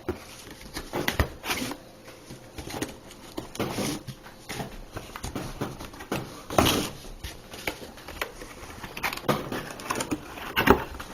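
Handling sounds as a box and its packaging are opened: irregular rustling, scraping and knocks, the loudest knock about six and a half seconds in.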